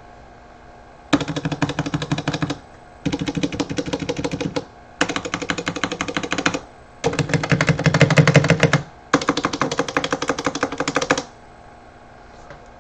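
Royal Kludge RK84 mechanical keyboard with stock, unmodified TTC Brown tactile switches being typed on fast, in five bursts of rapid keystrokes with short pauses between; the fourth burst is the loudest.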